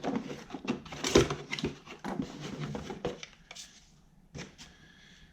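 Handling noise from a new angle grinder and its packaging: a run of small knocks, clicks and rustles, the loudest about a second in, thinning to a few odd knocks after about three seconds.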